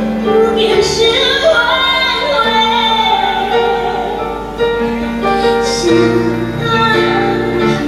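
A young girl singing a slow ballad into a microphone over a backing track, amplified through the stage sound system, with long held notes and a winding run of notes about a second in.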